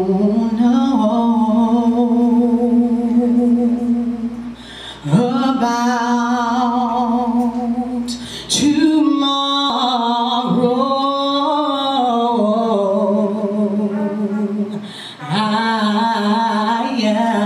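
A woman singing a slow gospel song solo into a hand-held microphone, holding long notes with a wavering vibrato. She sings in about four long phrases, with short breaks for breath between them.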